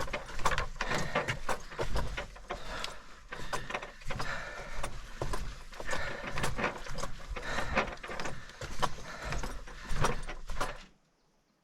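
Camping gear being handled and packed: a close, steady run of rustling with many small knocks and clicks, stopping abruptly near the end.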